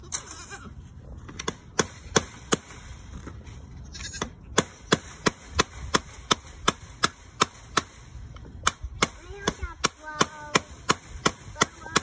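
Hammer striking a wooden fence post in quick light taps: a few scattered strikes at first, then a steady run of about three a second from about four seconds in, typical of driving fence staples while mending a fence.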